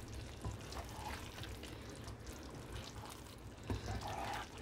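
Wooden spatula stirring a thick kofta and chana dal curry in a pan: faint wet squelching and scraping, with a few soft strokes and a slightly louder stir near the end.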